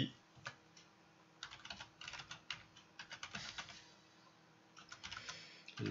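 Computer keyboard typing: several quick runs of keystrokes with short pauses between them, as a word is typed out.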